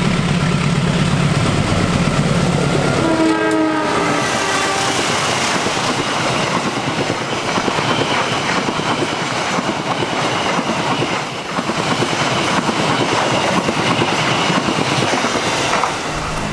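Indonesian diesel-electric locomotive passing close with its engine running, then a short horn blast about three seconds in. After that, passenger coaches run by with the clickety-clack of wheels over rail joints, and the sound drops off near the end as the train clears.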